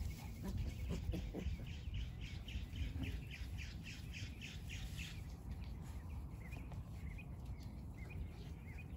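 A bird chirping in a rapid run of short high notes, then a few scattered chirps, over a steady low rumble.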